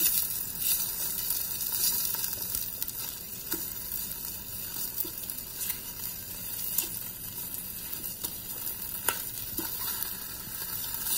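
Hot chicken wings sizzling in a Ninja Foodi air fryer basket mid-cook, while metal tongs turn them over, with a few sharp clicks of the tongs against the basket.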